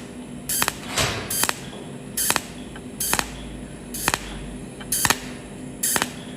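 Cold welding machine firing a series of short weld pulses, a sharp zap about every three-quarters of a second, as filler wire is melted spot by spot into a wide gap.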